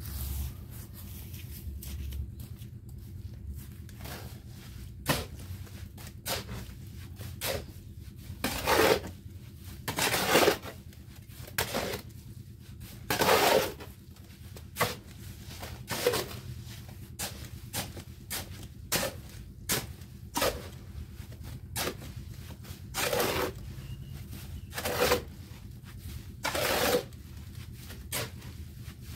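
A hoe scraping and chopping through a sand and cement mix in a steel wheelbarrow, in irregular strokes about every second or two.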